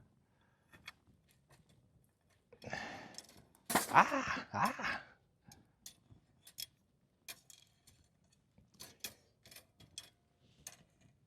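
Campfire being built up for more heat: a couple of louder bursts of rustling and clattering wood about three to four seconds in, then the fire crackling with scattered sharp pops.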